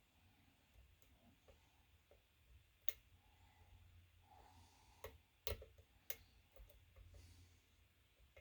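Faint metallic clicking and ticking of a lock pick working the pins of a Lockwood pin-tumbler lock, with a few sharper clicks about 3, 5 and 6 seconds in.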